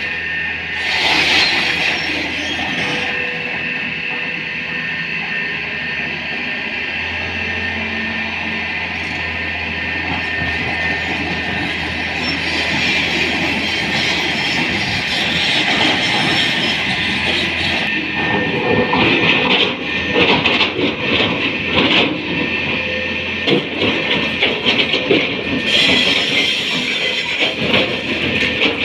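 Tata Hitachi 200 excavator's diesel engine running steadily under a high-pitched whine. In the last third, irregular metallic clanking and squealing from the machine at work join in.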